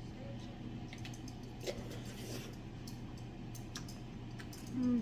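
Eating sounds: scattered small mouth clicks and soft chewing over a steady low hum, with a short voiced sound just before the end.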